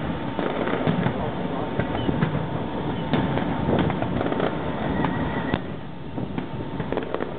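Distant fireworks display: many bangs and crackles in quick, irregular succession over a continuous rumble.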